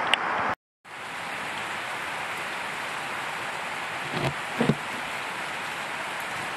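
Steady rain falling in forest, an even hiss of drops. The sound cuts out for a moment just after the start, and a few soft thumps come around four to five seconds in.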